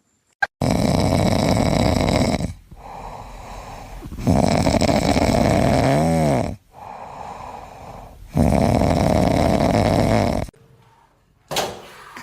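A pet snoring: three long, loud snores about four seconds apart, with quieter in-breaths between them and a brief squeaky whistle partway through the second snore.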